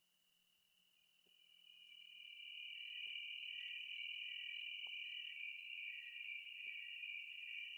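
A quiet electronic sound-effect tone fades in after about a second: a steady, high-pitched whine with a shimmering, cricket-like texture. A faint low hum runs beneath it, and a few faint clicks come through.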